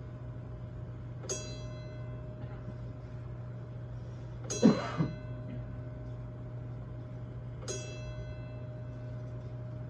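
A chime tolling the hour of eleven: single ringing strikes about three seconds apart, each fading away. A louder short noise comes about halfway through.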